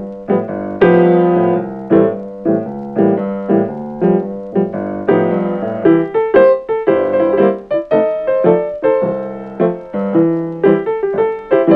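Background music: a piano playing a steady run of separate notes, each struck sharply and fading away.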